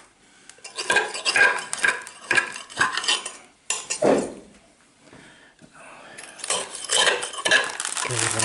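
A metal knife scraping around the inside of a bonsai pot to cut a mulberry's root ball free where the roots cling to the pot wall. It comes as a run of quick scraping strokes, a pause, then more strokes near the end.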